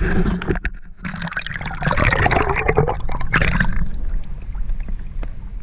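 Sea water splashing and sloshing right against the microphone as the camera is held at the surface. It is loud and crackly for the first four seconds, then settles to a quieter wash with a few clicks.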